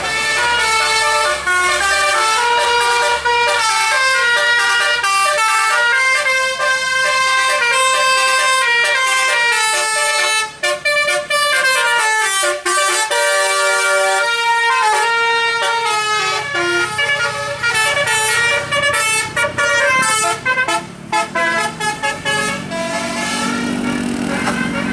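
Bus basuri telolet horn playing a tune: a run of stepped notes, some held and some short and quick, with only brief breaks. A lower engine drone comes in near the end.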